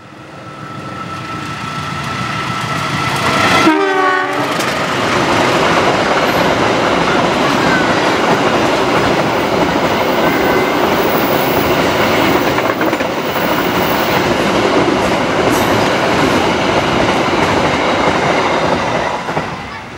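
CC 201 diesel-electric locomotive hauling a container freight train passing close by. The locomotive's sound builds, then its horn gives one short blast about four seconds in, its pitch dropping as it goes past. The loaded wagons follow with a loud steady rolling noise that starts to fade near the end.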